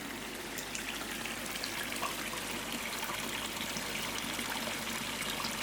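Steady trickle of water running into a koi pond.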